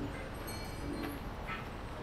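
Outdoor funfair ambience: a steady wash of background noise, heavy in the low end, with a few faint clicks and brief tones.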